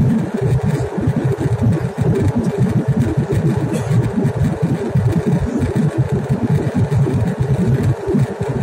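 Steady low roar of a jet airliner cabin in cruise: engine and airflow noise heard from inside the cabin, with an uneven rumble in the low end.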